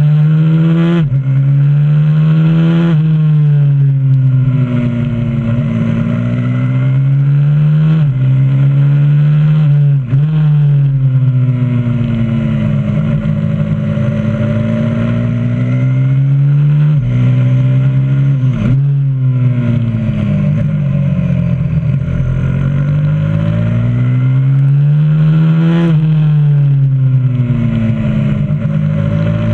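Single-cylinder engine of a 125cc supermoto pit bike heard from on the bike, revving up through the gears with sudden drops in pitch at each gear change, then falling away on braking into corners and climbing again on the way out, lap after lap.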